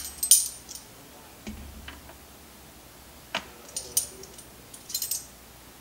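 A handful of scattered light clicks and clinks from a metal tablespoon and an oil bottle handled over a stainless-steel Instant Pot inner pot while cooking oil is measured in.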